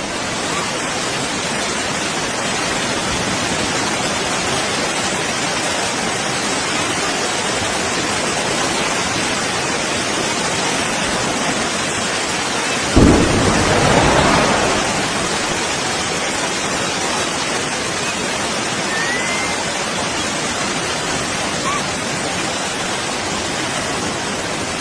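Explosion boom about halfway through: a sudden deep thud whose rumble swells and fades over about two seconds, over a steady rushing hiss.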